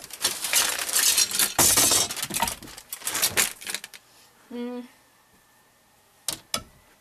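Clothes hangers sliding and clacking against one another along a metal closet rod, a dense rattling clatter for about four seconds. A short voiced sound follows, then two sharp clicks near the end.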